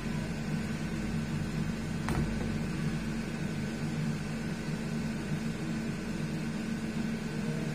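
A steady low hum with a faint high whine running under it, and a single sharp click about two seconds in.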